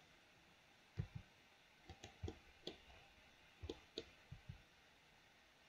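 Scattered clicks of a computer mouse and keyboard, about a dozen, some in quick pairs, as bones in a 3D scene are selected, rotated and moved.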